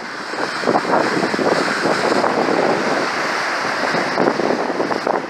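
Strong wind buffeting the microphone over the rush and splash of water breaking along the hull of a sailing yacht beating close-hauled into a force 7 wind.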